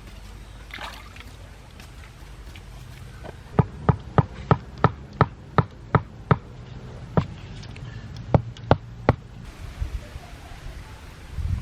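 Sharp knocks, about three a second for a few seconds, then four more spaced further apart, over a steady low background noise.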